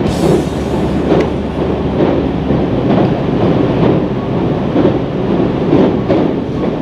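Tokaido Line local train running over a steel truss bridge, heard from inside the carriage: a steady rumble with a wheel clack about once a second.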